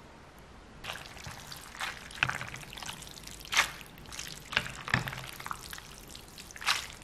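Chopsticks stirring and tossing hand-pulled noodles dressed in chili oil in a ceramic bowl: irregular wet squishing and slapping with a few sharper clicks, starting about a second in.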